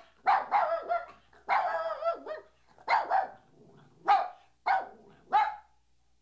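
A dog barking: about six pitched barks and yowls, the earlier ones drawn out and bending in pitch, the last three short and spaced about two-thirds of a second apart.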